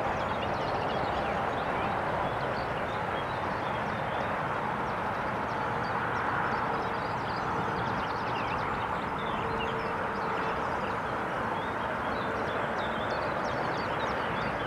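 Steady outdoor background noise, a continuous rushing hiss, with many faint short bird chirps scattered through it.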